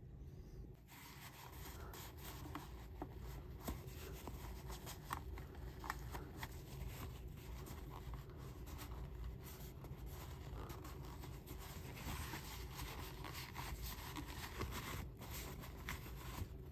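Paper towel rubbing and scraping inside the plastic jar seat of a mixer-grinder's motor base, starting about a second in. It is wiping leftover batter off and around the drive coupling after grinding. Batter left there dries hard and can damage the mixer.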